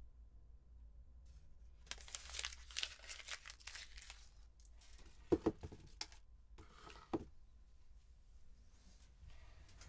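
Paper tearing and crinkling in someone's hands for about two seconds, followed by a few short soft knocks.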